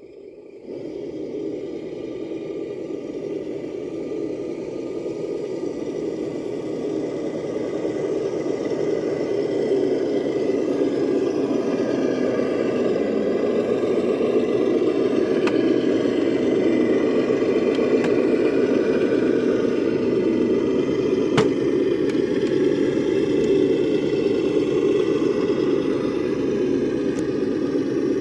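Electric RC crawler truck's motor and gears whirring steadily as it drives, getting louder over the first ten seconds or so. One sharp click a little past two-thirds of the way through.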